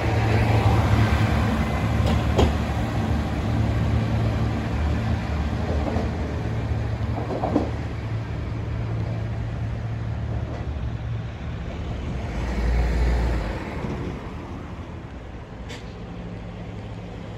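Diesel railcar engine idling, a steady low hum with a few faint clicks; it grows quieter over the last few seconds.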